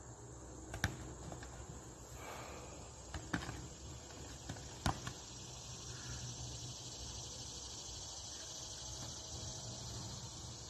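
A steady high chorus of insects, broken by three sharp smacks of strikes landing on sparring gloves: about a second in, then around three and a half and five seconds in.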